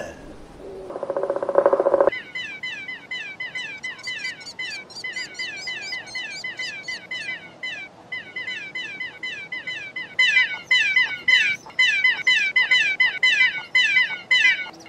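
Cartoon baby pterodactyls cheeping in their nest: a long run of short, falling chirps, a few a second, that grows louder and denser about two-thirds of the way through. A short buzzy sound comes just before the chirping starts.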